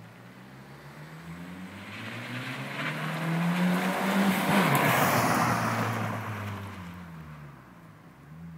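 Abarth Punto Evo's 1.4 turbo four-cylinder, breathing through an exhaust with the centre silencer removed and a homologated APE rear silencer, driving past: the exhaust note climbs in pitch and grows louder as the car approaches, peaks about four to five seconds in, then drops in pitch and fades as it moves away.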